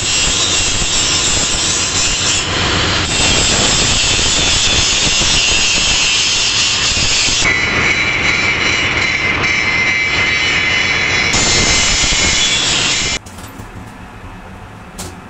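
Handheld angle grinder grinding steel, running loud and steady, its sound shifting a few times as the disc bears on the work. After about thirteen seconds it stops abruptly, leaving a much quieter steady hum with a single knock near the end.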